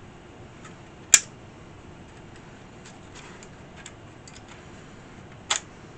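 Clicks from an Atari 1050 floppy drive's disk latch and eject mechanism as a 5.25-inch disk is pushed in to test it: one sharp click about a second in, a second near the end and a few faint ticks between. The eject mechanism is still catching on its plastic guide rather than throwing the disk back out.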